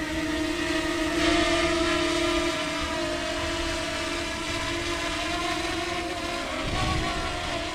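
Small DJI Mini quadcopter's propellers whining steadily as it runs close by, with gusty wind rumbling on the microphone. The whine wavers in pitch near the end as the motors adjust.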